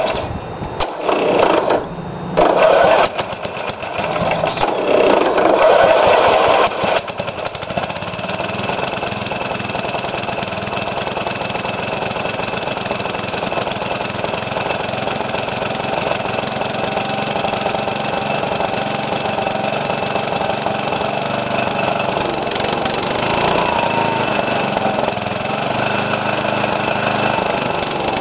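Briggs & Stratton lawn mower engine, freshly rebuilt with new piston rings and gaskets, running. Its sound surges unevenly for the first several seconds, then settles into a steady run.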